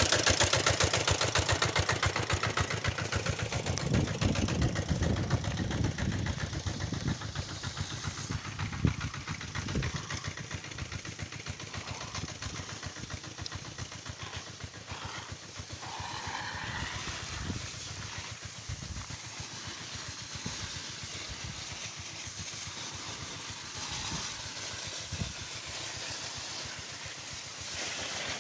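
Engine of a pipe-laying rig running with a fast, even firing beat. It is loud at first and fades over about ten seconds to a faint hum, with a few knocks along the way.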